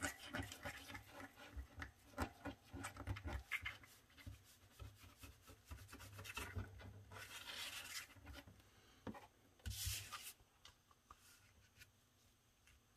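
The tip of a liquid glue bottle scratching along the edge of a paper envelope in quick short strokes, then paper rustling and a short louder scrape about ten seconds in as the envelopes are laid together and pressed flat by hand.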